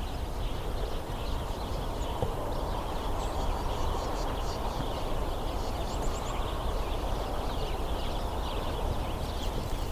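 A flock of house sparrows chattering and squabbling, many short chirps overlapping, under the louder, steady rustle of footsteps walking through brush.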